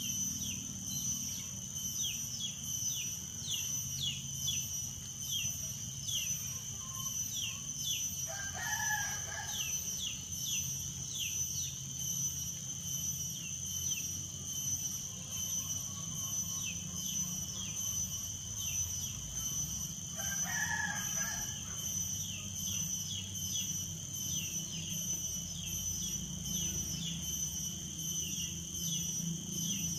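Outdoor countryside ambience: a steady high-pitched insect drone, frequent short falling bird chirps, and two longer, louder bird calls about nine and twenty-one seconds in, in the manner of a rooster crowing.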